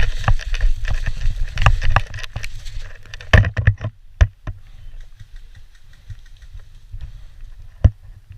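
Wind buffeting and handling rumble on a body-worn camera's microphone, loud for the first few seconds and then quieter, broken by a few sharp knocks or clicks, the loudest about three and a half seconds in and another near the end.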